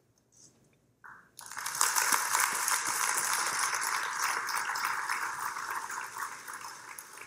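Audience applause that breaks out suddenly about a second and a half in and slowly dies away near the end.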